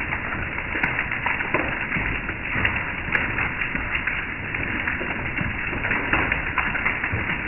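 Hail mixed with rain falling onto a wet wooden deck: a dense, steady patter of many small ticks and taps.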